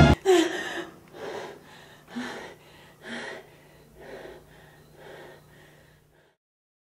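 Heavy, frightened breathing: five sharp gasps about one a second, growing fainter, over a faint low steady hum, right after music cuts off.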